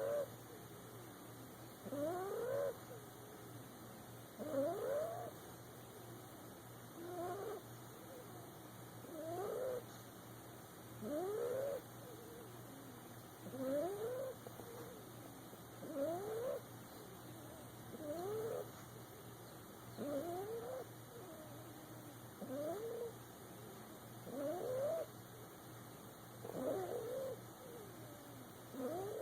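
Boxer puppy snoring in its sleep: a rising, pitched snore on each breath, coming evenly about once every two seconds.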